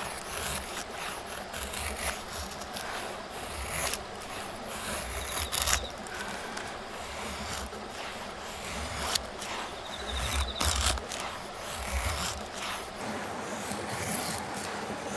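A knife blade shaving thin curls off a split wooden stick to make a feather stick, with repeated scraping strokes.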